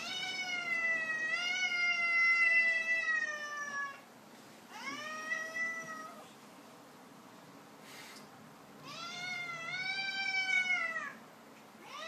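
Domestic cat giving three long, drawn-out yowls, the first about four seconds long and sinking slowly in pitch, the others shorter with a rise at the start: the warning yowls of an agitated cat.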